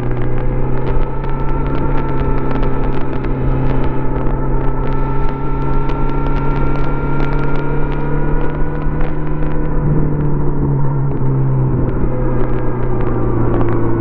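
2018 Kawasaki Z900RS inline-four running through its stock exhaust while riding. The engine note climbs slowly, shifts briefly about ten seconds in, and is dotted with frequent short crackles.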